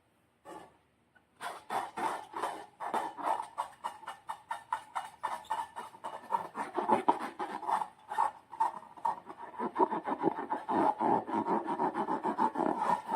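Slime being squeezed and worked by hand: a fast, uneven run of sticky clicks and squishes, starting about a second and a half in.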